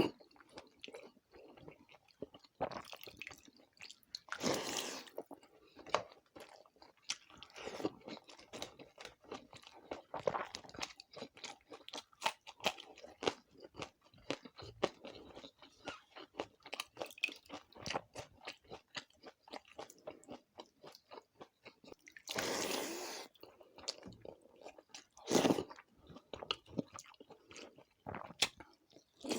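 Close-miked chewing of a meal of pakhala (water rice) with fried sides and papad: rapid wet mouth clicks and crunches, with a few longer, louder bursts of crunching, the longest about two-thirds of the way through.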